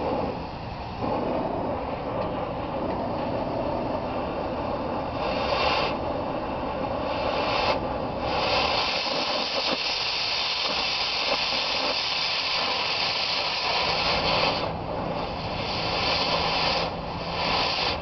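Oxy-acetylene cutting torch burning: a steady flame hiss, joined from about five seconds in by a louder, sharper hiss in several stretches, the longest through the middle. The sharper hiss is the cutting-oxygen jet cutting through the steel of the backhoe bucket tooth and throwing sparks.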